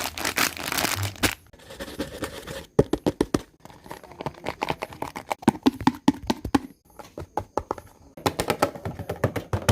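Irregular crackling and sharp clicks, like something being handled, crumpled or torn, with a denser rustling stretch in the first second.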